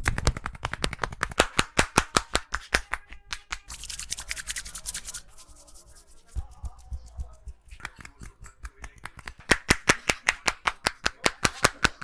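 Rapid, rhythmic hand slaps of an Indian head massage: quick chopping and clapping strokes on the head, about seven a second, in two runs with softer, irregular strokes in between.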